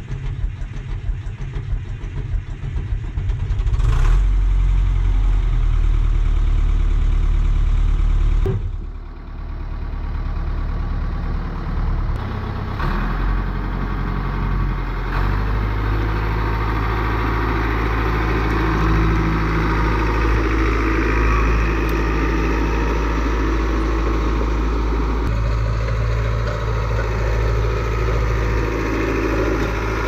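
Caterpillar D4C bulldozer's diesel engine, first idling unevenly, then throttled up about four seconds in to a steady, louder run. After a short dip near nine seconds it runs on steadily as the dozer moves.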